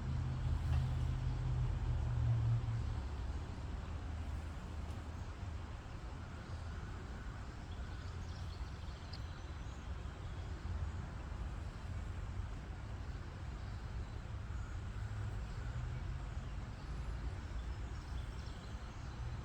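Outdoor creekside ambience: a steady low rumble, loudest in the first few seconds, under a faint hiss, with a few faint bird chirps.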